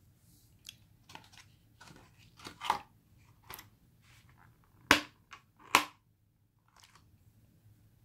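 Thin clear plastic lid of a chocolate box being handled and pressed down onto its tray: scattered plastic crackles and taps, then several sharp plastic snaps. The loudest two come about a second apart past the middle.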